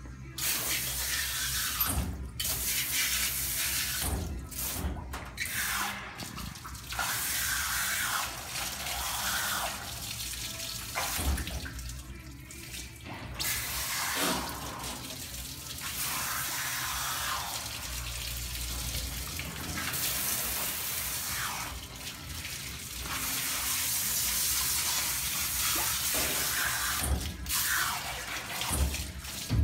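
Water spraying from a grooming tub's handheld hose sprayer onto a wet dog's coat, a steady hiss that stops and starts again several times as the dog is rinsed.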